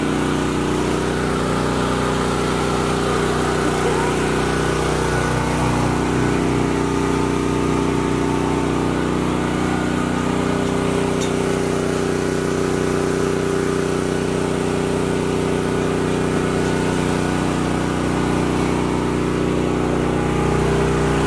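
Portable generator's engine running steadily, its pitch wavering slightly now and then.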